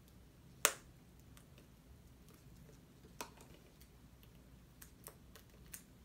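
A few sharp clicks and taps from a Blu-ray Steelbook case being handled. The loudest comes about a second in, another around three seconds, and a few lighter ones close together near the end.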